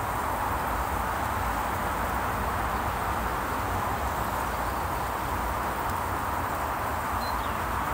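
Steady roar of distant motorway traffic, with wind rumbling on the microphone.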